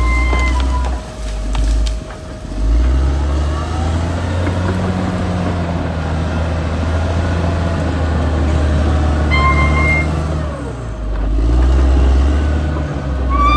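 Caterpillar D6R XL bulldozer's diesel engine running under load, its pitch shifting up and down with two brief dips as the machine works. Short high squeals come in near the start and again about nine and a half seconds in.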